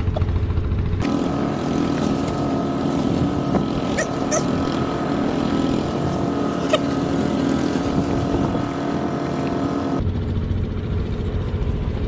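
A steady engine drone made of several held tones. It starts abruptly about a second in and stops abruptly near the end, with a few sharp clicks over it. Before and after it, a low rumble of wind on the microphone.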